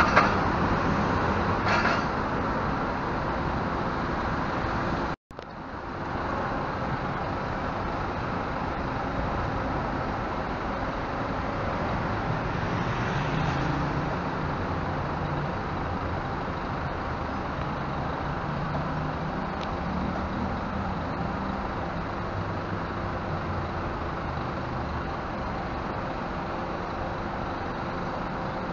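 Double-decker intercity coach's diesel engine running as the coach pulls slowly away, a steady low hum that rises a little twice, over traffic noise. The sound drops out for an instant about five seconds in.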